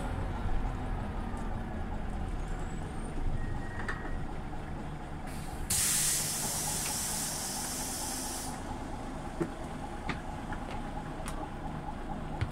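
Scania OmniLink city bus running with a steady low rumble. About halfway through, a loud hiss of compressed air from the bus's pneumatic system lasts about three seconds and cuts off sharply.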